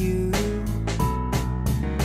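Background pop song with guitar over a steady beat, heard between sung lines.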